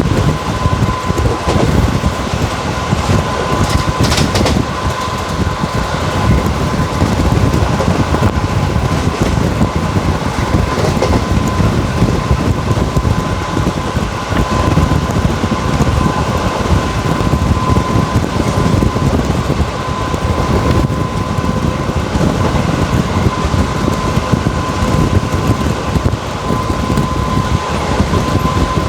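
Track noise from an ICF passenger coach running at speed: a steady rumble and rattle of the wheels on the rails, with a thin steady tone above it and a sharper clatter about four seconds in.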